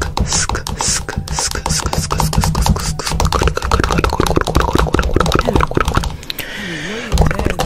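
Distorted, rapidly stuttering electronic music with a heavy bass beat, the kind of edited sound-effect remix made from a song. Near the end a wavering tone dips and rises in pitch twice.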